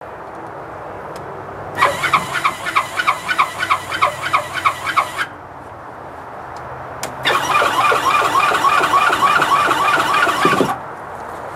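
Motorized vertical chicken-coop door run open and then closed by its electric motor. Each run is a squealing, rapidly pulsing sound of about three and a half seconds, with a pause of about two seconds between the opening and the closing run.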